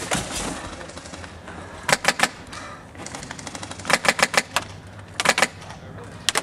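Airsoft guns firing in short rapid bursts of sharp clicks, four bursts a second or two apart.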